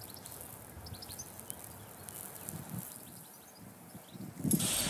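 Small birds chirping, scattered short high chirps over a faint background hiss. A louder rush of noise starts suddenly near the end.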